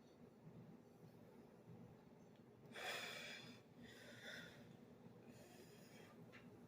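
Near silence, with one faint short breath about three seconds in, from a man holding swallowed air to work up a burp.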